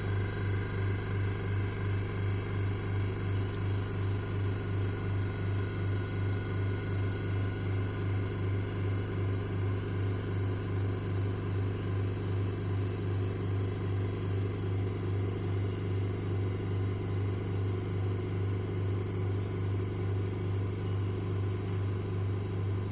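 Rotary evaporator's vacuum pump running steadily, pulling the system down to vacuum: a constant electric hum with a regular pulsing beat.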